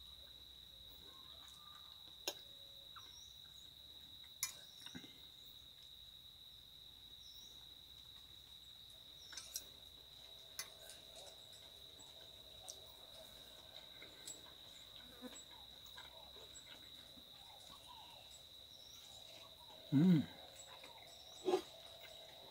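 Steady high-pitched insect chirring, with a few light clicks of a metal fork on a ceramic plate while eating. Near the end come two short louder sounds, the first a brief low hum.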